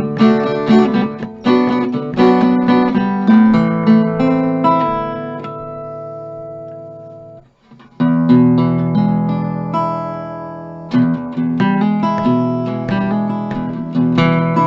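1951 Epiphone Triumph Regent archtop guitar being played: chords plucked in a steady rhythm, then a chord left ringing and dying away, a brief pause, and fresh chords from about eight seconds in.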